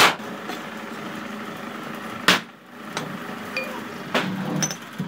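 Two sharp knocks during work on a sand-casting mould, one at the start and one about two seconds later, over a steady mechanical noise.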